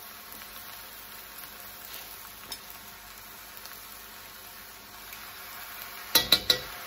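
Pad see ew sizzling steadily in a hot wok, getting a little louder toward the end. Several sharp clinks sound near the end.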